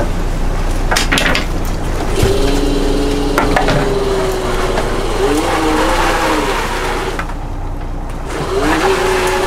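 Lobster boat's engine running steadily, with a whine that comes and goes, rising and falling in pitch. Two sharp knocks come about a second in.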